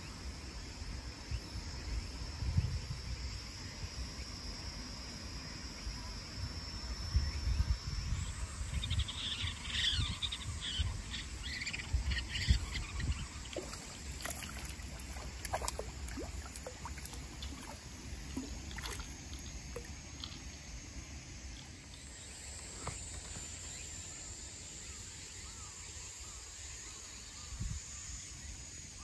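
Waterside ambience: a steady high insect drone that steps up in pitch about eight seconds in, with wind rumbling on the microphone. A cluster of short chirps comes around ten seconds in, and scattered short ticks follow.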